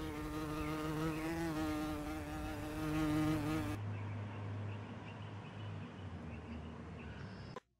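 A small flying insect, a fly or bee, buzzing close to the microphone: a pitched drone that wavers slightly. About four seconds in it drops to a fainter, lower hum, which cuts off just before the end.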